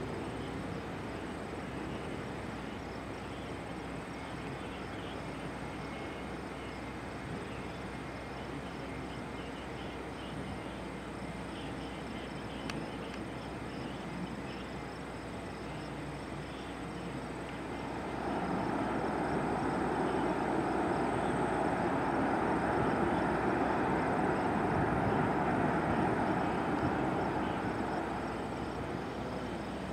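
Jet airliner passing: a broad engine rumble swells up a little past halfway, holds for several seconds, then fades near the end. Under it, insects chirr steadily with a faint pulsing.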